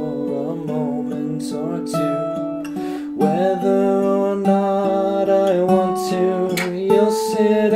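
Acoustic guitar strumming and picking chords in an instrumental passage, with no singing.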